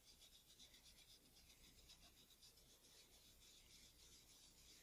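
Faint, rapid rubbing: a small oily-then-degreased camera aperture blade being wiped dry with a cotton swab on toilet paper after soaking in lighter fluid. The rubbing stops near the end.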